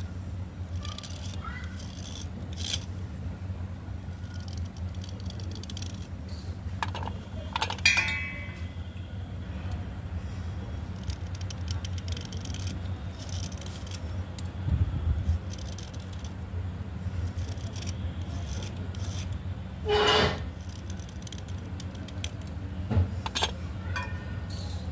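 A small metal blade scraping wet slate pencils, shavings dropping onto a steel plate: scattered scrapes, clicks and clinks, with a few louder ones, over a steady low hum.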